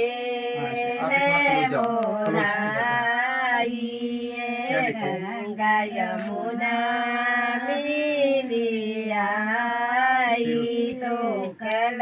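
A traditional haldi ceremony song sung unaccompanied in a high voice, with long drawn-out notes that bend slowly in pitch and short pauses for breath.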